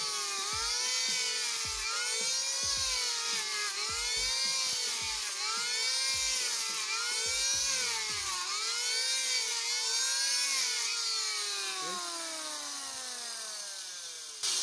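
Electric hand planer with a new blade, running as it is pushed along a wooden board. Its motor pitch sags and recovers about once a second as the cutter bites into the wood. About eleven seconds in it is switched off and its whine falls away as the motor spins down.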